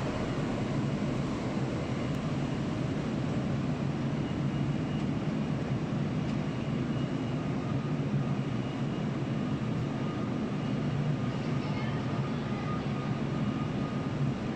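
Steady low rumble of factory-workshop background noise, with a faint thin whine coming in about halfway through.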